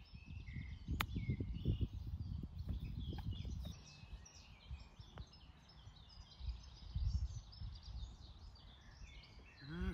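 Small birds chirping over a low wind rumble on the microphone. About a second in, a single sharp click as a golf club strikes the ball.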